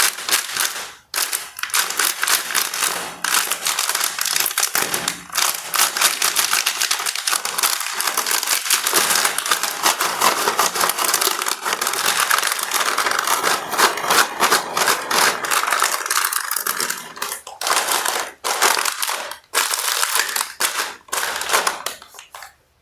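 Plastic candy and snack wrappers crinkling and rustling as they are handled and opened, a dense run of crackles with a few short pauses in the last few seconds.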